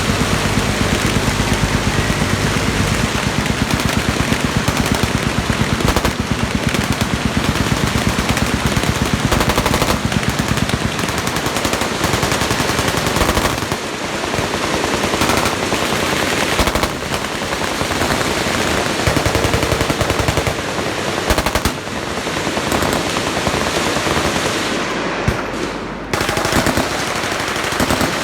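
Several machine guns firing together from a firing line: a continuous, loud rattle of overlapping automatic fire that never stops for long.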